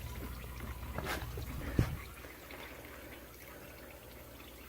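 Transmission fluid trickling out of a Chevrolet Cavalier's transaxle as the axles are pulled, with a single sharp knock about two seconds in.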